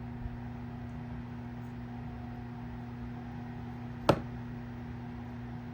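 Steady low electrical hum from running workbench equipment, with one sharp click about four seconds in.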